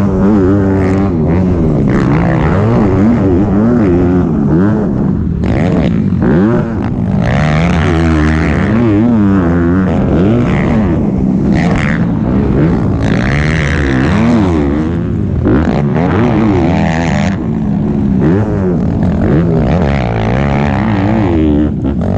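Honda CRF250R motocross bike's single-cylinder four-stroke engine ridden hard, revving up and dropping off again and again as the rider works the throttle and gears over jumps and ruts.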